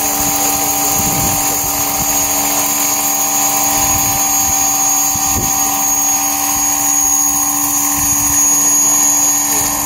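Large-scale electric radio-controlled model of an Aérospatiale Lama helicopter in flight: the electric drive gives a steady high whine over the rotor noise, swelling slightly near the end.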